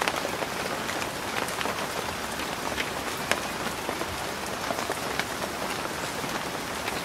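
Steady rain falling under tree cover: a constant hiss with many separate drops pattering and ticking on leaves.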